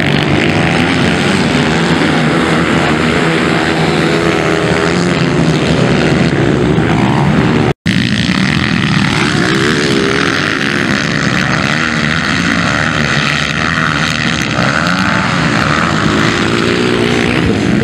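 Several 230 cc motocross bikes racing together, their engines revving up and down hard through the corners and over the jumps. The sound cuts out for an instant about eight seconds in.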